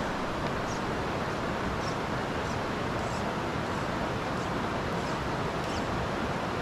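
A shallow creek running over rocks: a steady rush of water, with faint, short, high bird chirps now and then.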